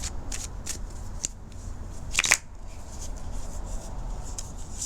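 Tarot cards being handled and laid out: a run of short papery slaps and slides, with a louder crisp card sound a little over two seconds in, over a steady low hum.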